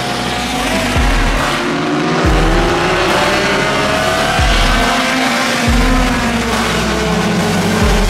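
A pack of dirt-track stock cars racing, several engines rising and falling in pitch as the drivers accelerate and lift. A deep bass pulse from background music comes and goes underneath, roughly every second or two.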